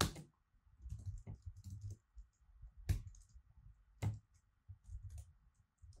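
Typing on a computer keyboard: irregular key clicks, with three louder clacks right at the start, about three seconds in and about four seconds in.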